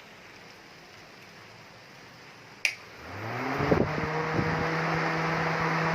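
DC motor radiator fan switched on with a sharp click, then spinning up over about a second and running steadily with a low hum and a rush of air; a few light knocks sound as it gets up to speed. This is the repaired fan being test-run.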